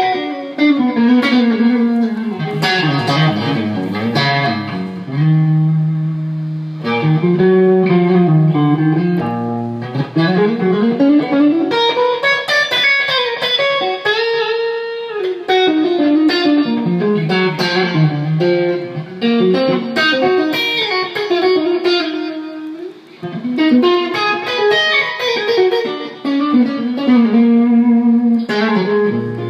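Electric guitar played through a TC Electronic G-System effects processor, sound-checking the rig. It plays a lead line of single held notes with bent, gliding pitches.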